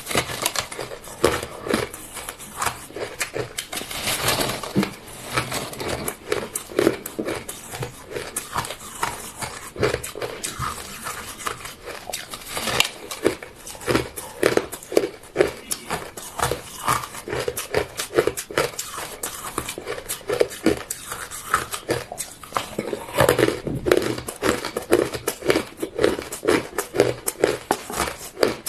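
Close-miked crunching of ice being bitten and chewed, a rapid, irregular run of sharp crunches, several a second.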